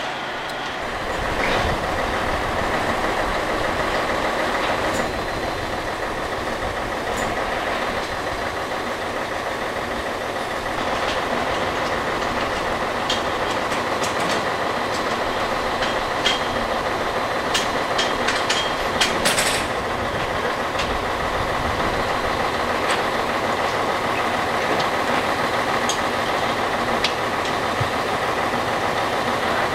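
Steady drone of heavy machinery with a constant high whine, and scattered sharp metal clanks and rattles, bunched together about two-thirds of the way through.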